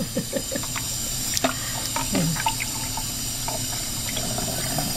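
Kitchen faucet running steadily into a sink while natural sausage casings are rinsed under the stream.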